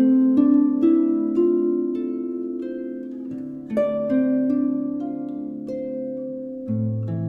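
Instrumental background music in a slow melody, its notes starting sharply and left ringing so they overlap. A deeper bass note comes in near the end.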